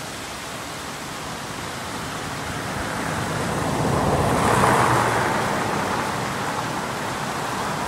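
Snowmelt stream rushing over rocks, a steady hiss that swells about halfway through.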